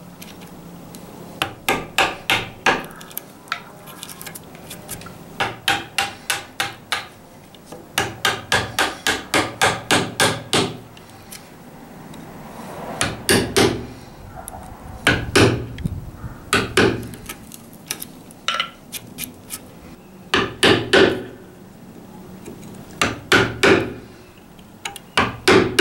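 A hammer striking a small chisel to chop a shallow recess across a crack in red oak for a spline: runs of quick light taps, about four to five a second, then slower strikes in groups of two or three in the second half.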